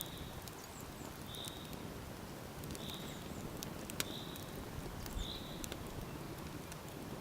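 Small wood campfire crackling, with a few sharp pops over a steady hiss. A short high chirp, from a bird, repeats about every second and a half.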